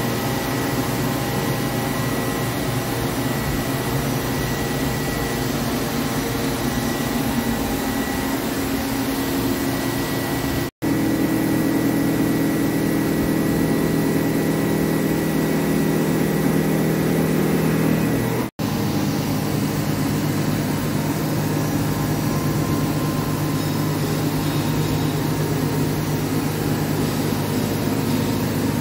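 Steady mechanical hum of a large CNC lathe and its running equipment, with several steady tones and no cutting sounds. The sound drops out sharply twice, about eleven and eighteen seconds in, and the pitch mix shifts a little after each gap.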